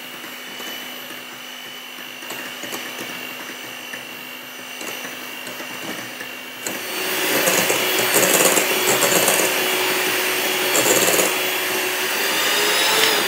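Electrolux electric hand mixer running steadily, its beaters whipping cream until it thickens into stiff peaks. About halfway through the whirr becomes louder and higher-pitched, and it winds down at the very end.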